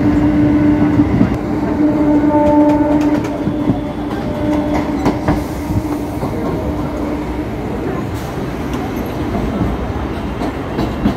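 Train carriage running fast, heard from inside: a steady rumble of wheels on the rails with a hum through the first half that fades away, and sharp clacks over rail joints around the middle.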